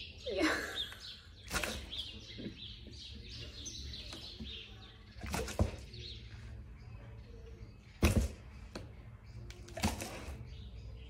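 A dog's muzzle knocking on a cardboard whack-a-mole box as it snaps at a treat popped up through the holes. There are several sharp knocks at irregular intervals, and the loudest comes about eight seconds in.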